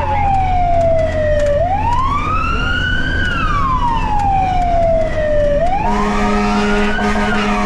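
Fire engine's wail siren sweeping slowly up and down, about four seconds per rise-and-fall, over a low steady hum. A second, steady low tone comes in about six seconds in.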